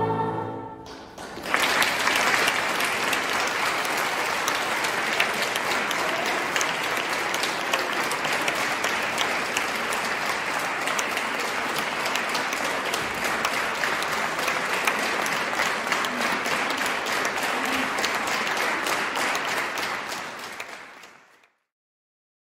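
A boys' choir's last sung chord stops about a second in, then the audience applauds steadily, the clapping fading out near the end.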